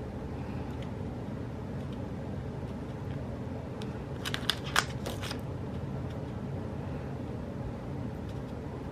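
Paper sticker sheets and planner pages being handled, giving a short run of crinkly crackles and clicks about four to five seconds in, over a steady low hum.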